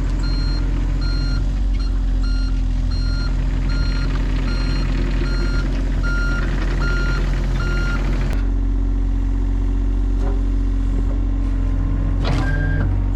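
Heavy-equipment backup alarm beeping at a steady rhythm, under two beeps a second, over a running diesel engine. The beeping stops abruptly about eight seconds in and the engine keeps running.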